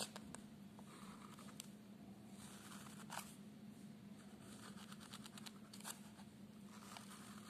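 Faint scratching of a pen drawing straight lines on paper, in a few short strokes with small taps, over a steady low hum.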